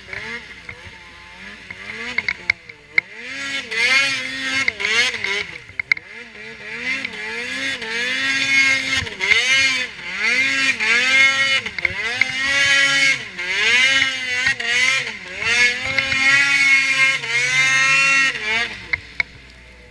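Ski-Doo Freeride 800 snowmobile's two-stroke Rotax 800R E-TEC twin revving up and down over and over as the throttle is worked while riding through snow, quieter for the first few seconds and dropping away near the end. Scattered sharp clicks run through it.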